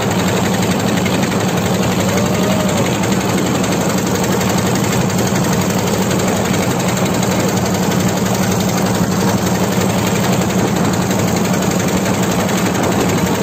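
Small open fishing boat's inboard engine running steadily under way: a loud, even mechanical drone at a constant pitch, with no change in speed.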